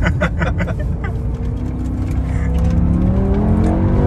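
BMW M5 E60's 5.0-litre V10 engine heard from inside the cabin, running steadily and then rising in pitch through the second half as the car accelerates.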